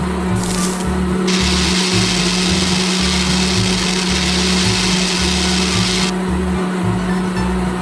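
A small electric motor whirring with a steady hiss, starting about a second in and cutting off suddenly near six seconds, over background music with a bass line.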